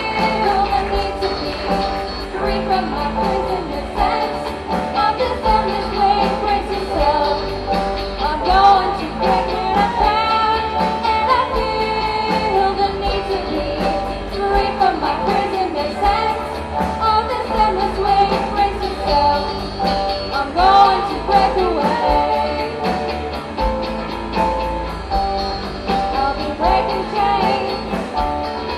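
A live rock band playing a song, with young female voices singing over electric guitar, bass and keyboards.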